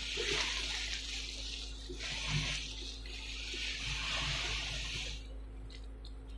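Kimchi fried rice sizzling in a hot non-stick wok as a wooden spatula stirs and turns it, the sizzle swelling and fading in waves with each turn, with a few soft knocks of the spatula against the pan.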